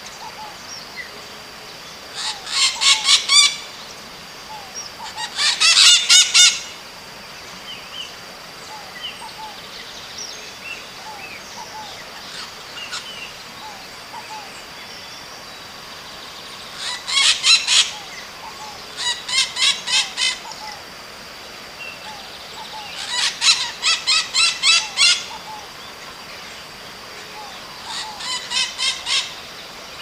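White-eyed parakeet calling in six bursts of rapid repeated notes, each lasting a second or two, with long gaps between them. A faint steady high tone and other faint bird chirps run underneath.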